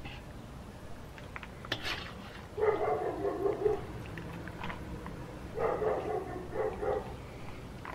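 A dog barking in two quick runs of several barks, the first about two and a half seconds in and the second about five and a half seconds in. Before the first run come a few sharp clinks of a metal ladle against the cast-iron cauldron.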